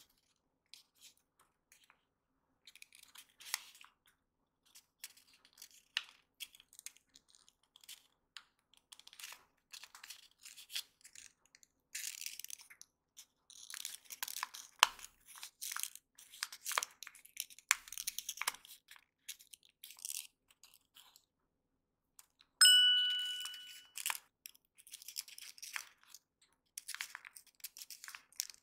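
Origami paper being handled, pressed and creased by hand: scattered soft crinkles and taps. About two-thirds of the way in, a single bell-like ding rings out and fades over about a second and a half.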